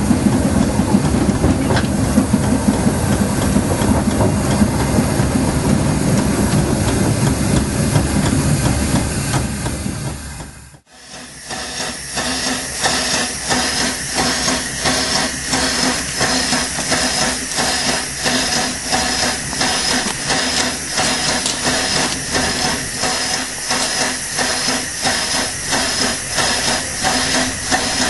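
Two-foot-gauge steam locomotive running along the line, heard from its footplate as a heavy rumble of wheels and motion that fades out about ten seconds in. Then a standing steam locomotive hisses steadily, with an even, regular pulsing.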